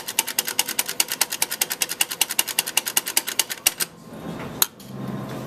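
Espresso grinder's doser lever being flicked rapidly to drop ground coffee into a portafilter, a fast even clacking of about ten clicks a second that stops just before four seconds in. A single sharp knock follows, then a steady low hum starts near the end.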